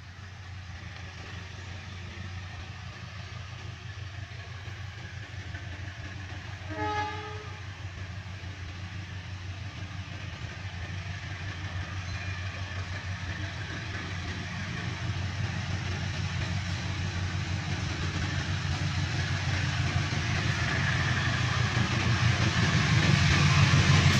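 KAI diesel locomotive hauling a passenger train as it approaches, its low engine rumble growing steadily louder, with one short horn blast about seven seconds in.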